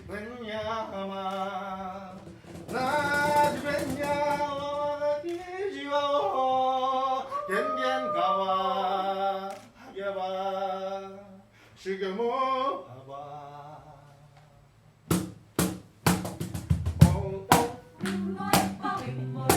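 A voice singing a melody on its own with a wavering pitch, then, after a short pause, sharp strummed ukulele chords begin.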